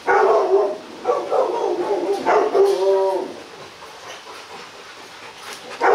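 Rottweilers whining with short yelps in two stretches over the first three seconds as a male and female jostle in courtship, then quieter, with one short sharp sound near the end.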